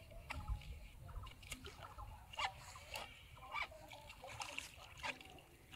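Small, scattered splashes of water as a hooked fish thrashes at the surface on a bamboo hook line.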